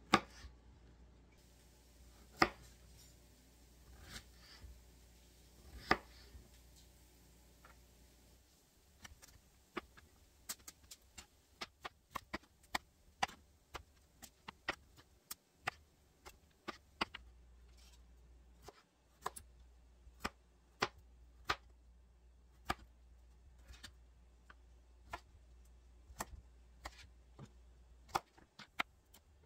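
Chef's knife chopping broccoli on a cutting board. A few single knocks come first, then from about nine seconds in a run of quicker, uneven chopping strokes.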